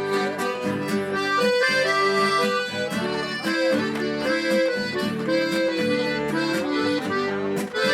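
Accordion playing a melody in the instrumental break between sung verses of a sertanejo song, in steady, held notes.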